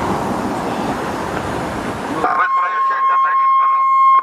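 Street traffic noise, then a little over two seconds in a voice over a loudspeaker calling out to get off the roadway, with a steady whistling tone running under it until it cuts off.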